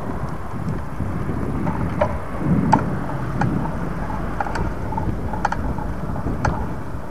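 Wind and riding noise rumbling on an action camera's microphone during a bicycle ride, swelling a few seconds in, with a handful of short sharp clicks and rattles.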